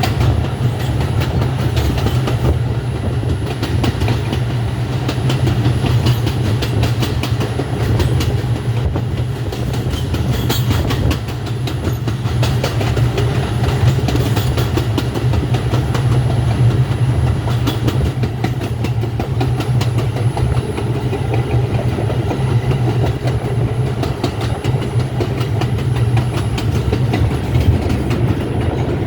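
R142 subway train running along the track: a steady low rumble with frequent clacks of the wheels over rail joints.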